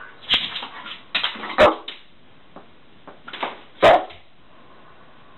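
Rottweiler barking: five sharp barks in two groups, three in the first two seconds and two more near the four-second mark.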